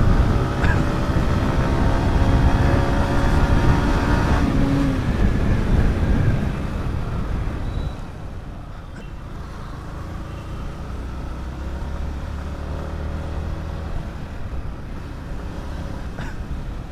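Yamaha MT-15's 155 cc single-cylinder engine running as the bike is ridden, with wind and road noise. About five seconds in, the engine note drops in pitch. The sound then grows quieter and settles into a low, steady hum.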